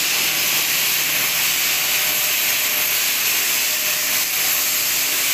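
Abrasive blasting of steel girders: compressed air driving grit through a hand-held nozzle, a loud, steady hiss that never lets up. This is the blasting stage that readies the steel for metalizing and painting.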